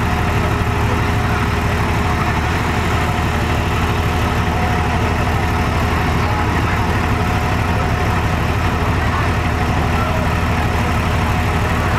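Komatsu D58E crawler bulldozer's diesel engine running steadily at low revs.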